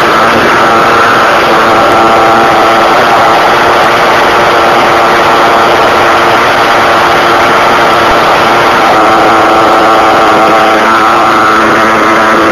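Small nitro engine (RB S7) of an RC buggy running at a steady pitch, close to the onboard microphone, with small wavers in pitch and no revving.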